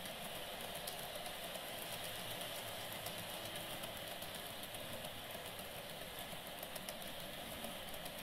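N-gauge model container train rolling past: a steady whirring of the small wagons' wheels on the track, with a few faint clicks.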